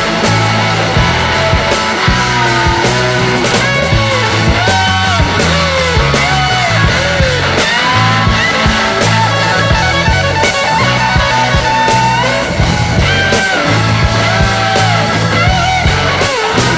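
Background rock music with electric guitar, a steady bass and drums.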